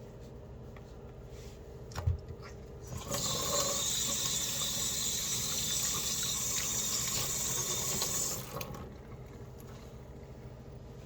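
Sink tap turned on and running steadily for about five seconds, then shut off. A short knock comes about a second before the water starts.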